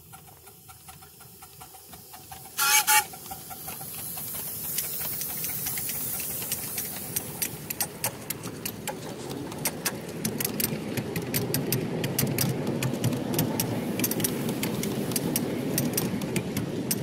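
Live steam model locomotive giving one short whistle blast about three seconds in, followed by the steady running rumble of the riding train on its track, with many sharp clicks.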